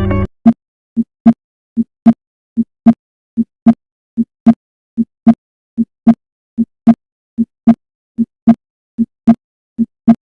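Heart sounds playing back as a steady lub-dub at about 75 beats a minute. In each beat a softer first sound is followed about a third of a second later by a louder, sharper second sound. Guitar music cuts off just as it begins.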